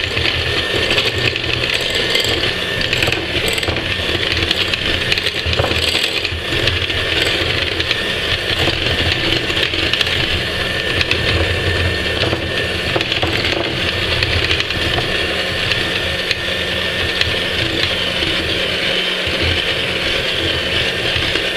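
Handheld electric mixer running steadily, its twin beaters whisking thick chocolate cake batter in a glass bowl.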